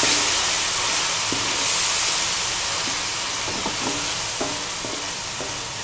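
Onion and spice masala sizzling in hot oil in a stainless steel pan as a wooden spatula stirs it, with a few faint scrapes and taps of the spatula against the pan.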